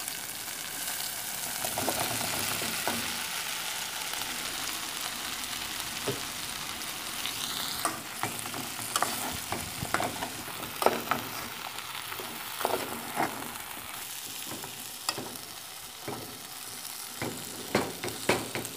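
Vegetables sizzling in hot oil in an aluminium pot while chunks of cassava are stirred in with a metal spoon. Steady sizzle, with the spoon knocking and scraping against the pot in sharp clicks, more often in the second half.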